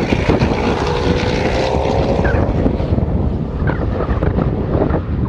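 Jaguar F-Type R Coupe's supercharged V8 running hard as the car drives past on a race track, its note rising slightly over the first couple of seconds and then fading.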